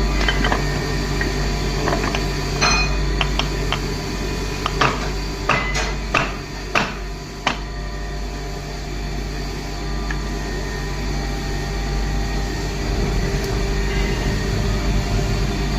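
Hammer blows on steel parts during assembly of universal-joint driveshaft parts: about nine sharp metal knocks in the first half, several in quick succession around the middle, then stopping. A steady low machine hum runs underneath.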